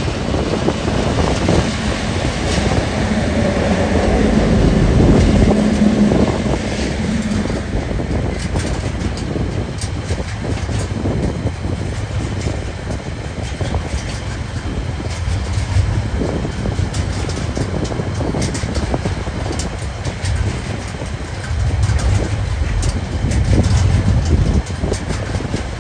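Diesel locomotives of a freight train pass close by, their engines running with a steady hum for the first several seconds. Then loaded container wagons roll past, the wheels clicking on the rails.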